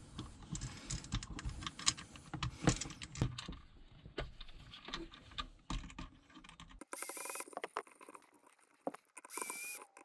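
Small clicks and rattles as a plastic electrical box and outlet are handled. Then a Milwaukee brushless cordless drill-driver runs in two short bursts with a high whine, about seven seconds in and again near the end, driving the outlet's mounting screws into the box.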